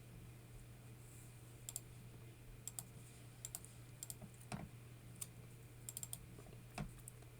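Faint, irregular clicks of a computer keyboard being typed on, a dozen or so sparse keystrokes, over a low steady electrical hum.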